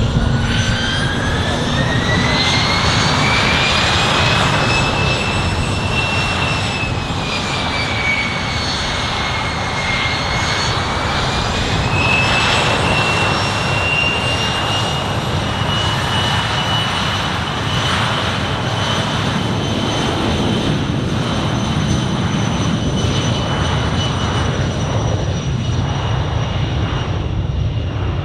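Bombardier Challenger 604 business jet's turbofan engines running: a high whine that rises over the first few seconds, sags a little in the middle, then holds steady over a low rumble.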